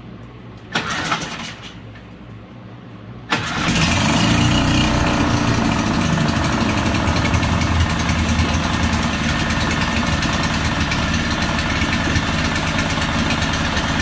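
Honda 5 hp four-stroke single-cylinder outboard being pull-started: a short burst of cranking about a second in, then it catches a little after three seconds in, revs briefly and settles into steady idling. It starts within a couple of pulls, better than before its carburetor was cleaned and spark plug checked.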